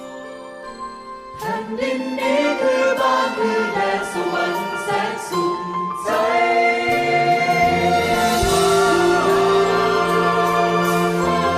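Music: a Thai song, a voice singing over instrumental accompaniment. It swells into a fuller, louder passage with long held notes about six seconds in.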